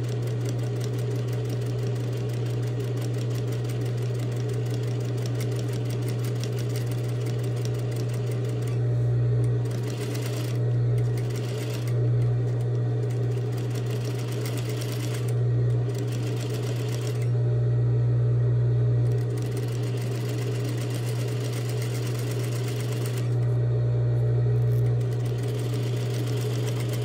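Industrial sewing machine top-stitching a fabric tote-bag strap: a fast, even run of needle strokes over a steady motor hum, the stitching stopping briefly several times while the hum carries on.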